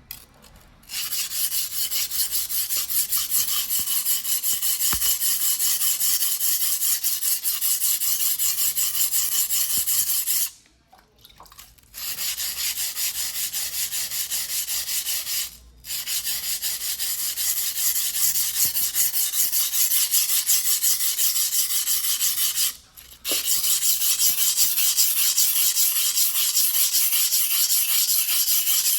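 Hand sharpening of a Choyo White #2 steel yanagiba on a wet whetstone: the blade scrapes in quick, continuous back-and-forth strokes. The sharpening stops briefly three times, about ten, sixteen and twenty-three seconds in.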